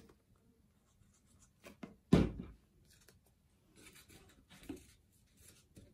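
Paper crafting at a tabletop: cut-out paper pieces and a paper plate rustling and rubbing as the pieces are pressed down and glued, with one sharp thump about two seconds in.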